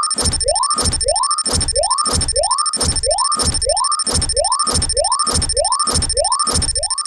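Cartoon railroad crossing warning signal ringing steadily at about two strokes a second. Each stroke is a short rising chirp over a dropping low thud, with steady high whistling tones held underneath.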